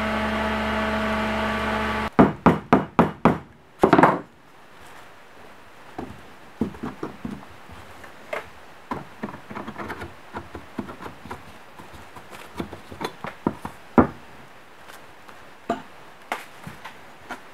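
Milling machine running with a steady hum that stops about two seconds in. Then a quick run of about six sharp knocks and one more a second later, followed by lighter scattered taps and clicks of a steel cylinder liner and metal parts being handled on a workbench.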